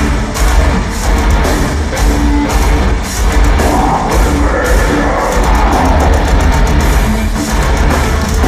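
Heavy metal band playing live through a loud arena PA: drums and heavy guitars, with cymbal and drum hits coming thick and fast and no break.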